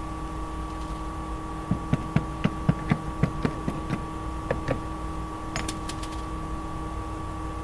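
A hammer tapping a nail into wooden garage-door weather strip trim: a quick run of about ten strikes at roughly four a second, then two more. A steady electrical hum sits under it.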